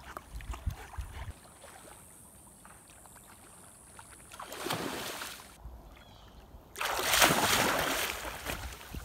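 A Doberman splashing in shallow water: a brief swish of water a little before halfway, then loud, continuous splashing as she plunges in after fish, starting about two-thirds of the way through.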